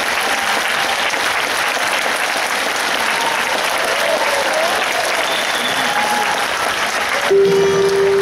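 Audience applauding, dense and steady, with a few voices calling in the crowd. About seven seconds in the applause gives way as music starts with a long held note.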